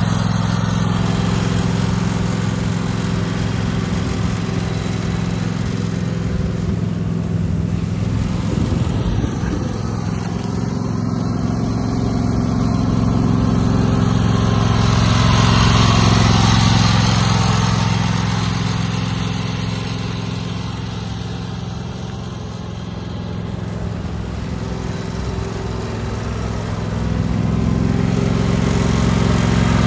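Craftsman GTS 5000 garden tractor engine running steadily. It grows louder about halfway through, falls away for a few seconds, and comes back up near the end.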